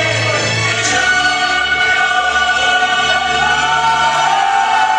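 Music with voices singing long held notes, in a choral style.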